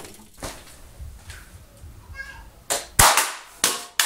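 A few sharp knocks and bangs in the second half, the loudest a single bang about three seconds in.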